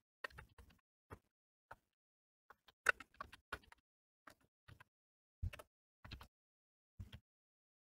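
Computer keyboard keystrokes while typing: faint single key clicks and short runs of clicks at an uneven pace, with brief gaps between them. The loudest clicks come about three seconds in and again a little past five seconds.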